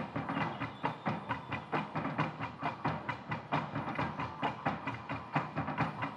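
Fast, steady rhythmic percussion, about five drum strikes a second, as music for a stage dance.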